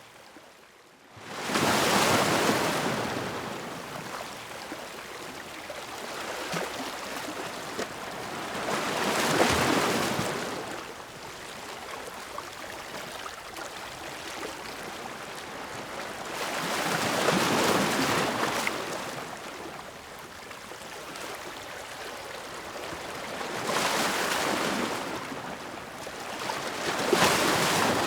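Ocean waves breaking, swelling and receding about every seven seconds. It opens with a near-silent lull of about a second before the first wave comes in.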